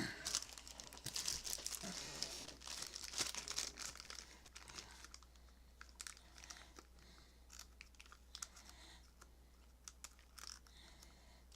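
Plastic packaging bag crinkling and rustling in irregular crackles as it is handled and pulled open. The crackling is busiest in the first few seconds, then thins to scattered rustles.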